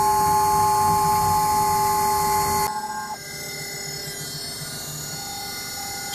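CNC router running, its spindle's high steady whine and drive-motor tones as the bit cuts melamine-faced particleboard. About three seconds in the sound drops abruptly to a quieter steady machine hum.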